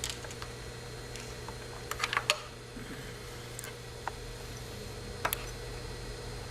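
Small metal clicks and taps as a roller presser foot and its flathead screw are fitted to a sewing machine with a screwdriver: one click at the start, three close together about two seconds in, and single ones about four and five seconds in. A steady low hum runs underneath.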